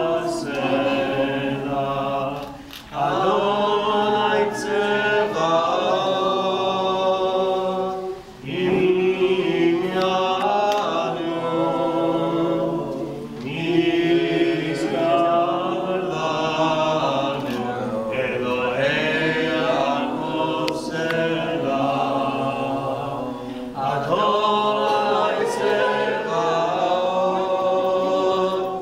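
A group of voices singing a Havdalah song together without instruments, in phrases with short breaks between them.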